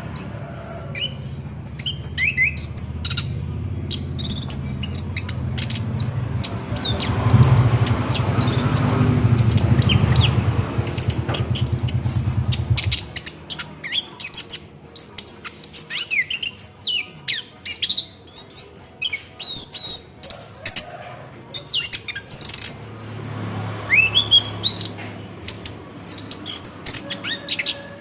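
Orange-headed thrush singing its rolling 'ngerol' song: a fast, unbroken run of high chirps and whistled notes. A low rumble sits underneath for the first half and again briefly near the end.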